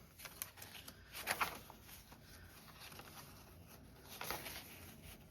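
Paper being handled, with a few short rustles and slides as journal pages and paper pockets are moved and positioned.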